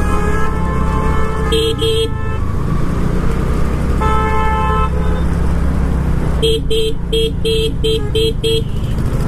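Vehicle horns honking in city traffic: several horn notes in the first half, then a rapid run of about eight short beeps near the end, over the steady low rumble of a scooter ride.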